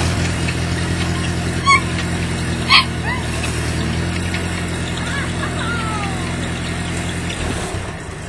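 An engine idling steadily, then shutting off about seven and a half seconds in. Two brief sharp high sounds stand out over it early on.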